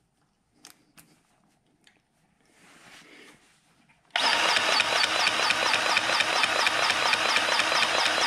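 A DeWalt cordless grease gun starts about halfway in and runs steadily for about four seconds, its motor pumping grease into a fitting.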